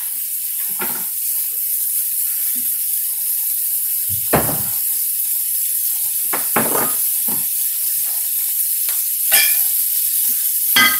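Chicken breasts frying in butter in a skillet, a steady sizzle, broken by a few short knocks and clinks, the loudest about four seconds in.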